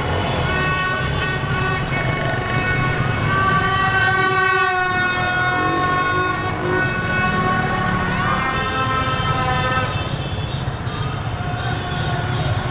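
Many horns honking in long, overlapping held tones over the running of a dense crowd of motorbikes. The horns thin out about ten seconds in.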